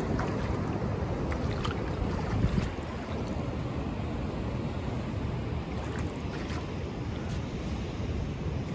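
Wind rumbling on the microphone over the steady wash of distant ocean surf, with a few faint ticks.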